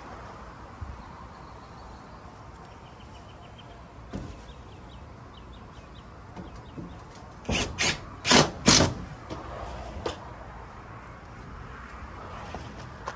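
Cordless drill driving screws into corrugated tin roofing, heard as four short, loud bursts close together a little past halfway.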